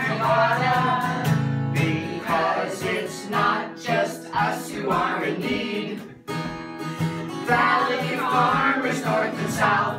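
A small group of voices singing a song together to a strummed acoustic guitar, with a brief break a little past the middle.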